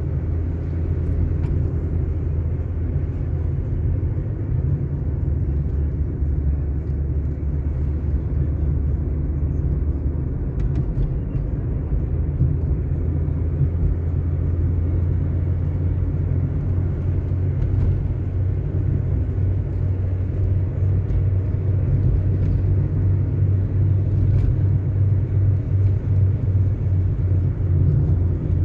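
Car driving along a paved road: a steady, low rumble of engine and tyres.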